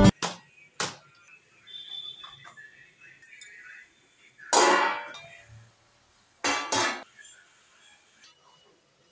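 Metal cookware clinking: an aluminium cake tin and a steel lid knocking against a cooking pot, with a few light clicks and two louder clanks about halfway and two-thirds of the way through.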